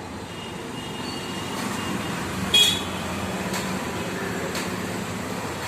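Steady road traffic noise with a short vehicle horn toot about two and a half seconds in.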